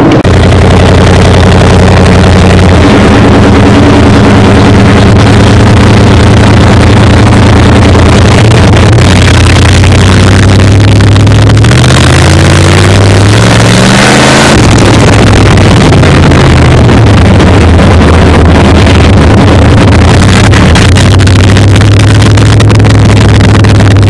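Dirt-track stock car's V8 engine heard from inside the cockpit, loud and running at a steady low speed. About halfway through it revs up for a few seconds, then eases back off.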